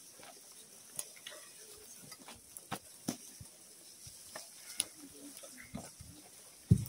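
Mostly quiet, with scattered faint clicks and rustles from people shifting about, and one louder low thump near the end.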